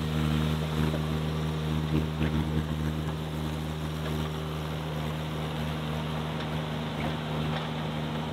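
Engine of a small stand-on mini track loader running at a steady speed as it travels carrying a log, with a few light knocks about two seconds in.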